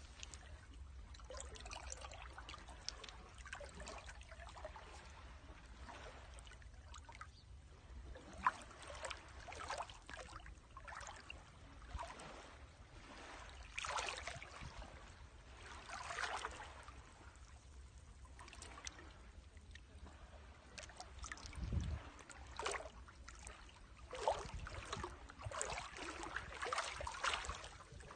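Small waves washing and sloshing against rocks at the water's edge, swelling and falling back irregularly.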